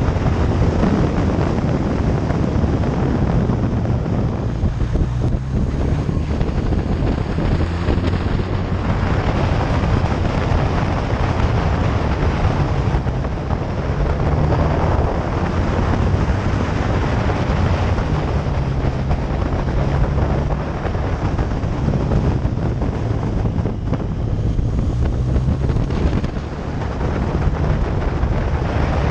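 Motorcycle engine running while under way, its low note shifting up and down as the speed changes, under heavy wind noise on the microphone.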